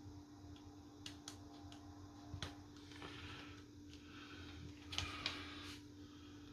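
Faint, scattered small clicks and taps of a phone's plastic button piece being handled and squeezed into the frame of a Samsung A12.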